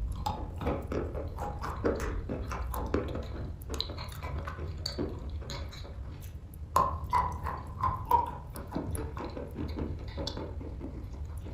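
Wet chalk being bitten and chewed, a dense run of irregular crunches and soft squishes over a low steady hum.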